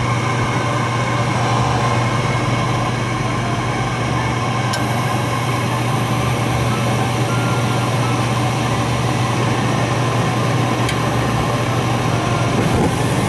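Gas furnace running just after start-up: a steady low motor hum under a rushing sound of burners and air, with more hiss joining about five seconds in. The burners are firing with the manifold gas pressure set too high.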